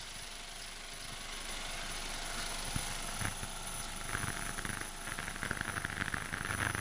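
Ultrasonic vibrating sieve running with a steady machine hum and a faint high whine, powder going onto its mesh screen. A couple of knocks near the middle, then from about four seconds in a fast buzzing rattle.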